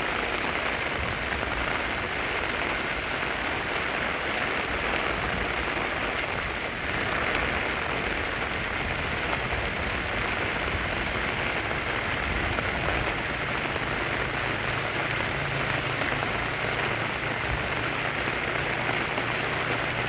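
Rain falling steadily, an even hiss of drops on leaves and ground.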